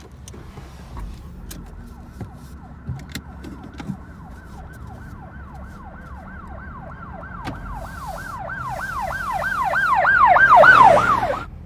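Emergency-vehicle siren in a fast yelp, sweeping up and down about three times a second. It grows steadily louder and then cuts off suddenly near the end.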